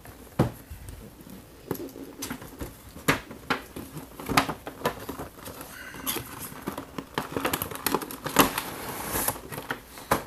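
A cardboard toy box and its clear plastic clamshell being opened by hand: irregular clicks and crinkles of cardboard and plastic. About six seconds in comes a longer sliding scrape as the clamshell is drawn out of the box.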